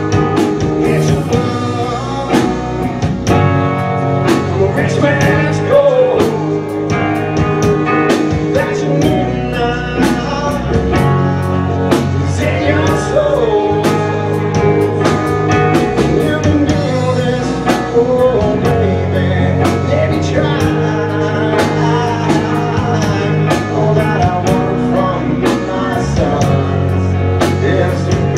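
Live rock band playing loud: electric guitar and drum kit with sung vocals over them, the drums keeping a steady beat.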